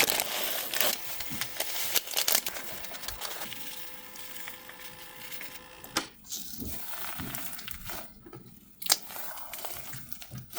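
Crinkling and crackling as add-ins such as bingsu beads, sugar scrub beads and sugar papers are worked by hand into a thick clear slime. It is loudest at the start, then settles into quieter scattered crackles and a few sharp snaps.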